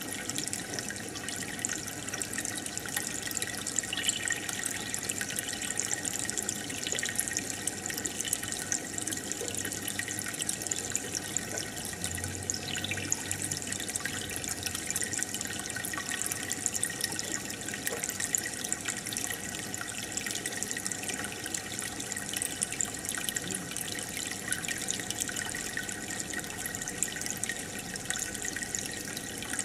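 Aquarium water bubbling and trickling steadily, with a dense run of small pops and splashes.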